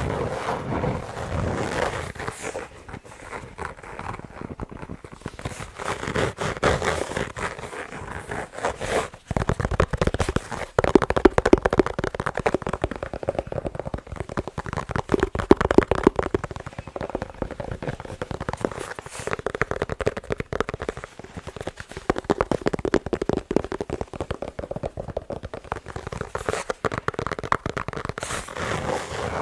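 Fingers tapping fast on balls: a dense, unbroken stream of quick taps.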